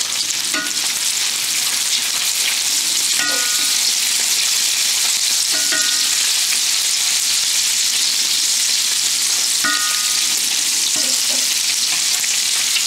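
Ground-beef meatballs sizzling steadily in hot bacon grease in a stainless steel skillet as they brown. A few brief sounds of a wooden spatula against the pan come as they are turned.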